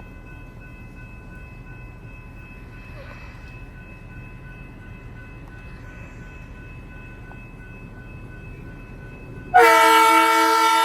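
Low rumble of an approaching electric commuter train, with faint steady high tones over it. About nine and a half seconds in, the train's horn blasts suddenly as a really loud chord of several tones and is still sounding at the end.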